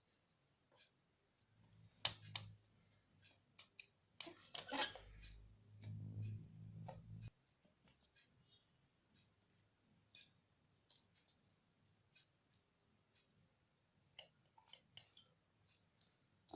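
Sparse small clicks and taps of wires and small parts being handled while the amplifier's output leads are connected, with a denser run of clicks about four to five seconds in. A low hum sounds under the first part and cuts off suddenly about seven seconds in.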